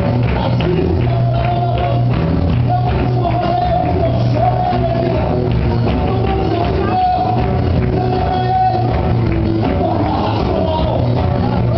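Live worship music: a band with drums playing a steady beat while voices sing a praise song.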